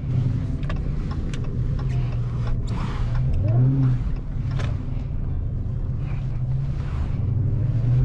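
The supercharged 6.2-litre HEMI V8 of a 2020 Dodge Challenger SRT Hellcat Widebody running steadily while driving, its pitch dipping and rising briefly about three and a half seconds in. A few sharp ticks sound over it.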